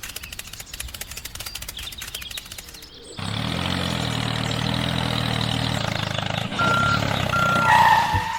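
A small motor ticking fast, cut suddenly about three seconds in by a steady engine-like hum. Two short high beeps sound near the end.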